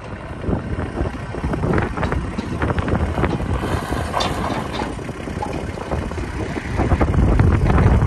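Massey Ferguson MF1528 compact tractor's diesel engine running as it drives over gravel, with the tyres crunching on the stones. It gets louder near the end as the tractor comes closer.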